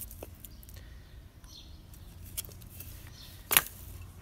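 Split halves of a small batoned log set down or dropped: one sharp wooden knock about three and a half seconds in, with a few faint clicks before it, over a low steady rumble.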